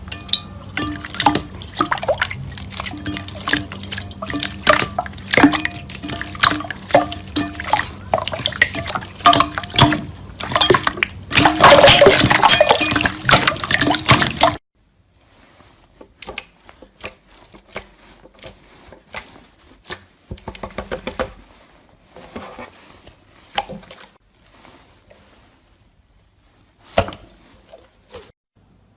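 Slime being squeezed and worked by hand: dense, loud wet clicks and pops. About halfway there is an abrupt cut to a much quieter stretch of scattered sticky crackles and pops, with one louder snap near the end.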